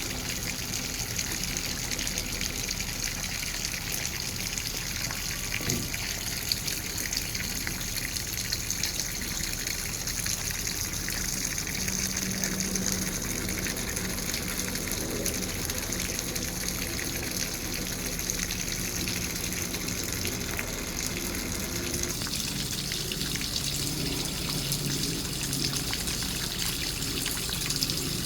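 Water running and trickling steadily, with fine splashes throughout.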